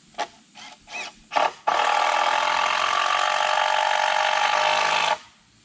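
Cordless drill driving a screw through a 2x6 into a wooden post: a few short spurts, then a steady run of about three and a half seconds that stops abruptly.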